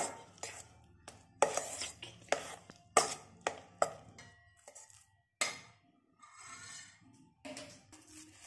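A spoon scraping and knocking against a stainless steel bowl while mixing sugar syrup into crumbly ground chana dal laddu mixture. The strokes are sharp and irregular, one or two a second, and grow sparser and softer after about five seconds.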